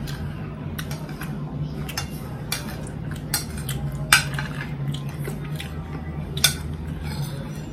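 Metal cutlery scraping and clinking against a ceramic plate, with a sharper clink about four seconds in and another about six and a half seconds in, over a steady low hum.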